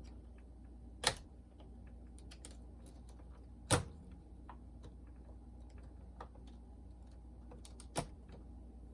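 Light clicks and taps of small plastic and metal parts being handled while a Pioneer SK-550 boombox is taken apart, with three sharper clicks about a second in, near four seconds and near the end, over a low steady hum.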